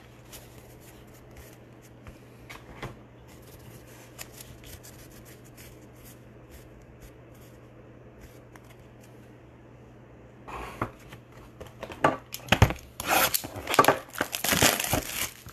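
Faint ticks and shuffles of a stack of trading cards being squared up in the hands, over a low steady hum. About ten seconds in, loud irregular tearing and crinkling begins as a cardboard Bowman blaster box is torn open and its wrapped card packs are handled.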